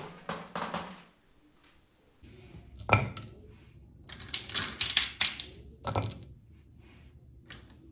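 Marbles rolling and clacking down a toy marble run. A quick train of clicks runs for the first second, then after a short pause come separate sharp knocks and a rattling cluster of clicks as the marbles hit and drop through the track.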